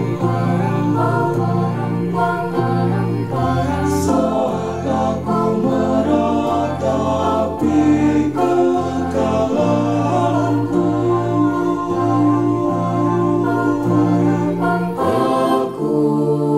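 Mixed choir singing a choral arrangement, its voices recorded separately and mixed together as a virtual choir. The lower voices hold long sustained chords while the upper voices carry a moving melody.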